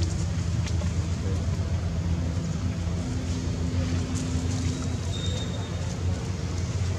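A motor running steadily with a low, even hum, a few faint clicks over it.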